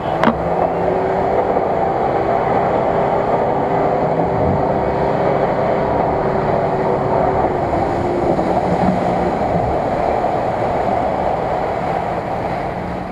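Off-road 4x4's engine running hard under load as it ploughs through a deep muddy pond, with the water churning and splashing around it. A steady engine note fades out about two-thirds of the way through.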